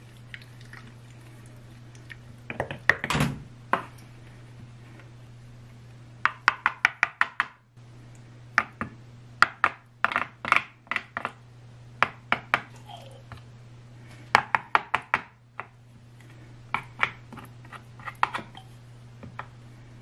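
Wooden spoon tapping and scraping basil pesto out of a glass jar and into an ice cube tray, in quick runs of light knocks with pauses between. A steady low hum runs underneath.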